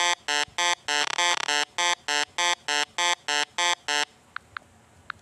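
A rapid, even train of identical short electronic beeps, about three a second, stopping about four seconds in; a few faint thin blips follow.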